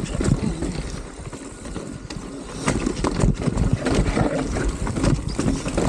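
Mountain bike rolling fast down rocky dirt singletrack: tyres crunching over dirt and rock, with the bike clattering and rattling over bumps and wind rumbling on the microphone. It eases off briefly about a second in, then the rattling picks up again from about halfway.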